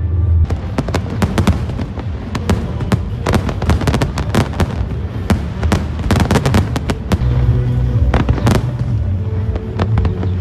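Fireworks bursting and crackling, a rapid, irregular string of sharp cracks and bangs, with music playing underneath.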